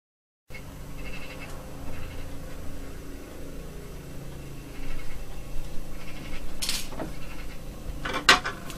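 Quiet room noise with a low hum, a brief rustle about two-thirds of the way through, and a few sharp clicks close together near the end.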